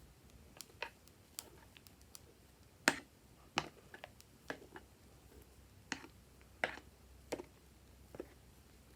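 Fluffy slime being pressed and worked by hand, giving short, sharp clicks and pops at irregular intervals.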